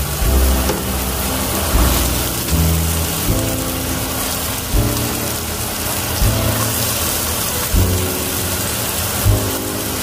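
Chopped onion, garlic and green bell pepper sizzling in hot oil in a frying pan, a steady crackling hiss. Background music with a regular beat plays over it.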